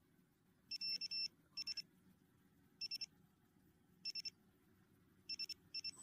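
Electronic buzzer beeping in quick high-pitched groups of two to four short beeps, a group roughly every second, over faint hiss.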